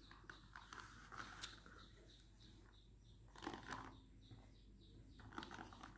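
Near silence with faint soft clicks and rustles of a person sipping an iced boba drink through a straw and chewing the tapioca pearls.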